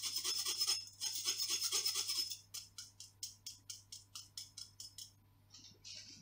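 Metal spoon scraping round a wire-mesh sieve, pushing cocoa powder through: a fast, steady rasping with a short break about a second in, then slower separate strokes, about four or five a second, that stop about five seconds in.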